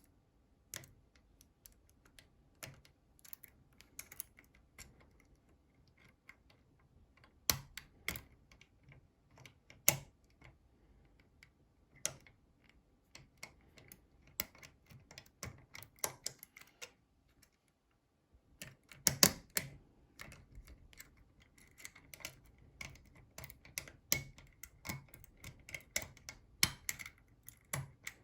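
Irregular small metal clicks and taps from a 10-lever lock being worked by hand with lock tools, with a brief pause about two-thirds of the way in.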